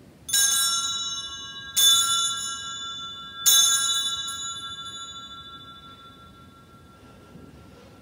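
Altar bell struck three times, about a second and a half apart, each strike ringing and slowly fading, the last ringing on for several seconds. It marks the elevation of the chalice at the consecration.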